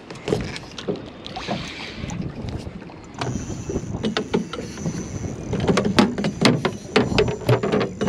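A run of sharp clicks and knocks on a fibreglass skiff deck as an angler handles rod and gear while fighting a hooked redfish, coming thicker from about three seconds in, over water lapping at the hull and wind on the microphone.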